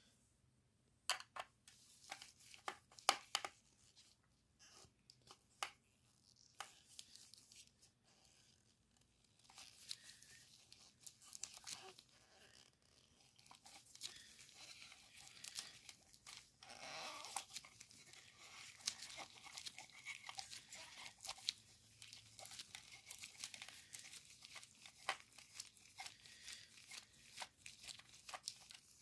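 A small screwdriver working a screw out of a diecast model's plastic display base: faint scratchy scraping with scattered sharp clicks from handling the plastic.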